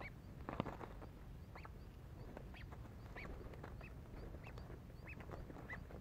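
Birds giving short, arched chirping calls, repeated about once or twice a second, with a single sharp knock about half a second in.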